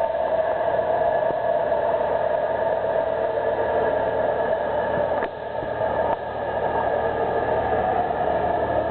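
Cummins diesel engine running hard on a chassis dynamometer: a loud, steady drone with a noisy rush over it. The sound dips briefly twice, about five and six seconds in.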